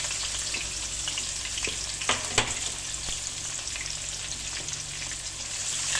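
Sliced onion sizzling in hot mustard oil in a pan, a steady crackling hiss with many small pops, just after the onion goes into the oil. Two louder clicks come a little after two seconds in.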